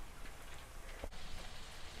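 Hands squeezing crumbly spiced curd cheese into a ball, with the crumbling mixture rustling and loose crumbs falling in light, scattered ticks onto a stainless-steel pan.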